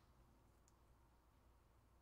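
Near silence: room tone, with one faint click a little under a second in.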